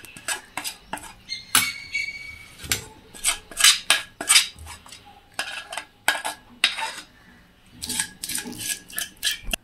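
Metal spoon scraping and clinking against a stainless steel pan as a thick, sticky sesame-peanut-jaggery mixture is scraped out into a steel plate: irregular scrapes and clinks, with brief pauses.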